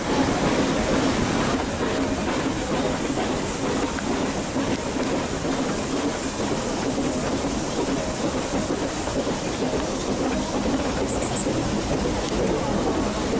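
Nilgiri Mountain Railway toy train running, a steady rumble and rattle of its wheels and carriages on the metre-gauge track.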